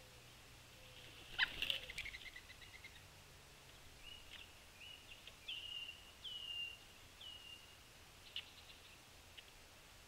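Birds at a backyard feeder station. A sharp knock comes about a second and a half in, followed by a quick run of high ticking notes, then several short, slurred whistled bird notes and a few faint clicks.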